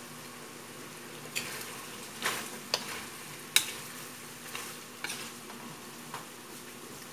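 Chicken adobo sizzling in its sauce in a metal wok over a gas flame while a metal spoon stirs it, with a scattering of sharp scrapes and clinks of the spoon against the pan.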